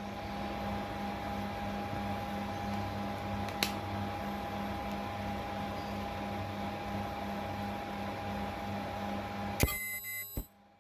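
Ultrasonic welding transducer and its generator running under test: a steady hiss with a thin high whine and a low hum that pulses a few times a second, with a single click partway through. It cuts off with a click near the end, followed by a couple of clicks.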